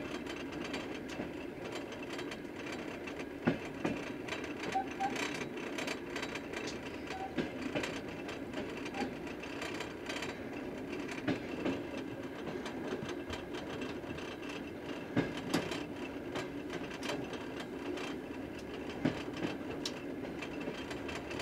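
Passenger train car rolling along the track, heard from on board: a steady rumble with irregular knocks and clicks.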